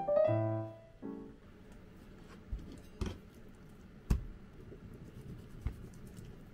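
Background piano music that stops about a second in, then quiet handling of a raw chicken thigh on a plastic cutting board, with a few light knocks and taps as it is trimmed with a knife.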